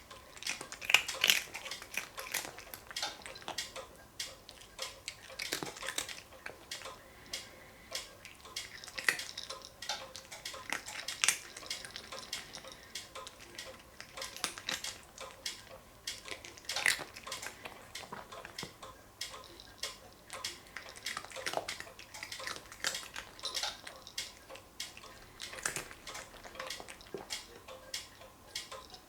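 Cat eating dry treats from a dish: irregular crunching of the kibble, with small clicks and clinks against the bowl.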